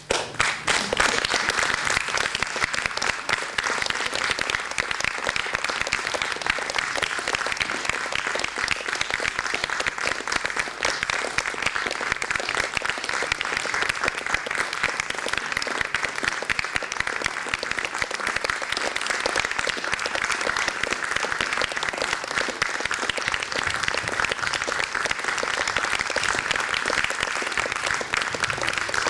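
Theatre audience applauding the curtain call at the end of a dance piece: dense clapping that breaks out all at once and then holds at an even level.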